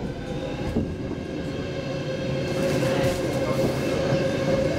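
Stockholm Metro C6 train running past a station platform: wheels rumbling on the rails under a steady motor whine that grows louder from about halfway through.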